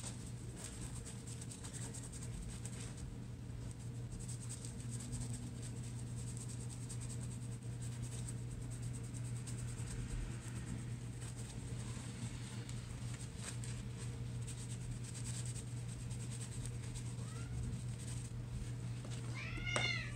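Female domestic cat in heat meowing: a faint short call, then a louder drawn-out meow that rises and falls just before the end. A steady low hum runs underneath.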